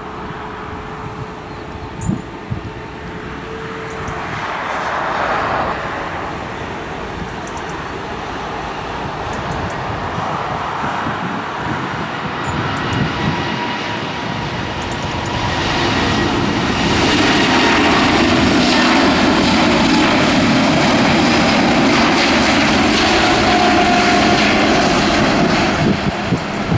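Jet engine noise from an Airbus A350-941's Rolls-Royce Trent XWB turbofans during its take-off roll. The noise grows much louder a little over halfway through as the airliner accelerates down the runway, then holds steady at full volume as it lifts off.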